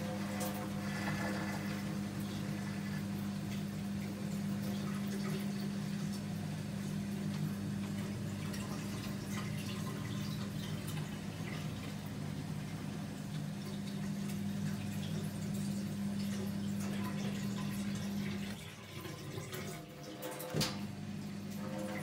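Miele G 4203 SC dishwasher running mid-cycle: a steady low pump hum with water spraying and splashing inside the tub. Near the end the hum stops for a few seconds, a single click sounds, and the hum starts again.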